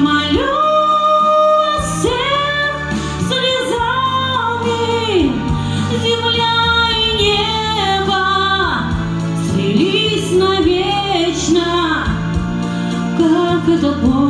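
Woman singing a slow song in long held notes with vibrato over an instrumental backing track.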